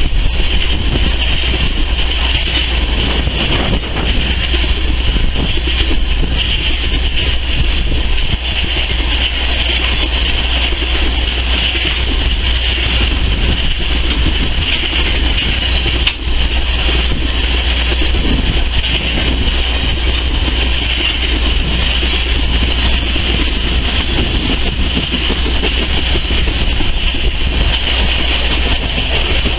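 Freight train of tank cars rolling past at trackside: a steady, loud noise of steel wheels running on the rails, unbroken throughout.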